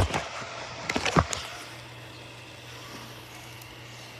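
Robot vacuum running with a steady low hum. A sharp knock comes right at the start and a short cluster of knocks about a second in.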